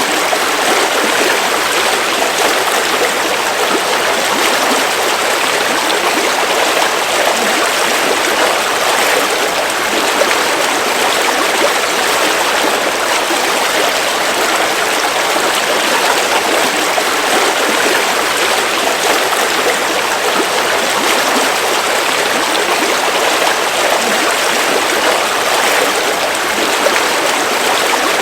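Steady rush of a river stream flowing over rocks, a constant even water noise without pauses.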